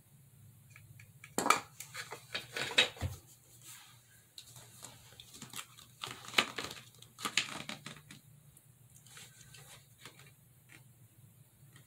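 Handling noise from assembling a rollabout hair dryer stand: scattered knocks and clatter of its plastic and metal pole pieces being fitted together, with rustling of a paper instruction sheet in the second half.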